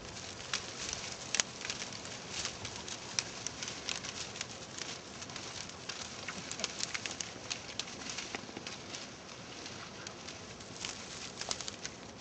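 Dry brush and dead twigs rustling and crackling, with many small sharp snaps at irregular moments, as a dog pushes through the thicket.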